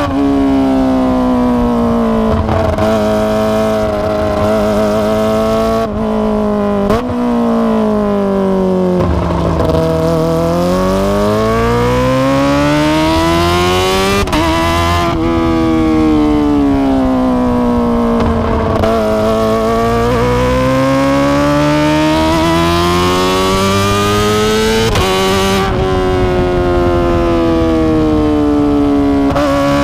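Kawasaki ZX-25R's 250 cc inline-four engine through an Akrapovic exhaust, under way: the engine note falls, then climbs for several seconds, then falls and climbs again, with several brief breaks in the note along the way.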